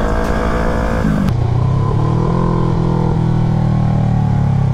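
Motorcycle engine running under load. Its revs drop about a second in, then hold steady at a lower pitch.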